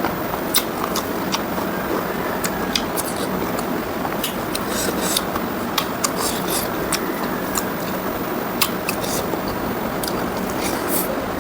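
Close-miked eating of pork ribs and rice: irregular wet clicks and smacks of chewing and biting, over a steady background hiss.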